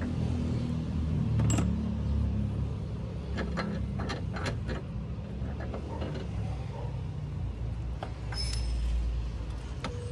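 A car engine running steadily at low speed, with a few sharp metallic clicks and knocks in the middle.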